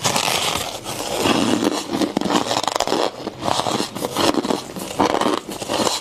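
Hard frost from a chest freezer crunching and crackling in irregular bursts, about once or twice a second, as chunks of it are bitten and broken apart.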